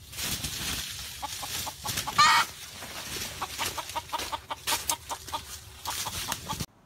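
Red junglefowl (wild chickens) flapping and scrabbling in dry leaf litter, with one loud squawk about two seconds in and a run of short clucks after it. The sound cuts off suddenly near the end.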